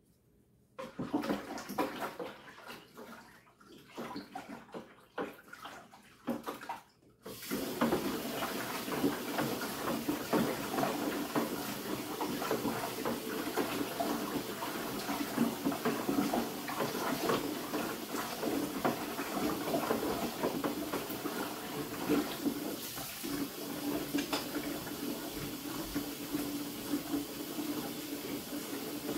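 A few scattered knocks and handling sounds, then about seven seconds in a kitchen faucet is turned on and runs steadily into a plastic bucket.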